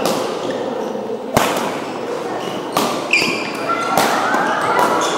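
Badminton rally: rackets hitting the shuttlecock with sharp cracks, four in all, the loudest about a second and a half in. Shoes squeak on the court floor and voices murmur, echoing in a large hall.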